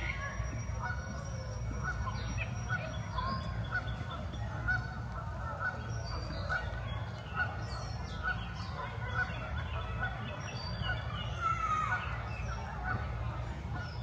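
Canada geese honking, one short honk about every second, with smaller birds chirping and singing around them over a steady low rumble.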